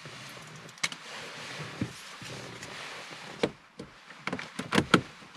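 Plastic trim removal tool scraping and prying at a small plastic trim cover on a Ford Mondeo Mk4's dashboard beside the radio. There are a few single sharp plastic clicks, then several quick clicks close together near the end as the cover works loose.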